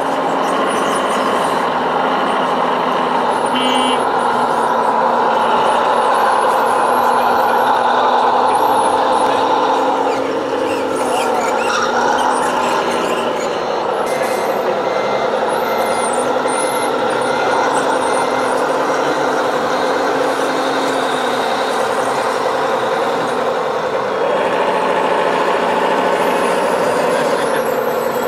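Radio-controlled model trucks running, their onboard sound units playing a steady diesel truck engine sound. About halfway through, a run of evenly spaced reversing beeps.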